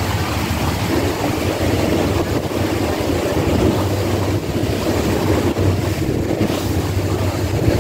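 Wind buffeting the microphone on a moving boat, over a steady low engine drone and water washing past the hull.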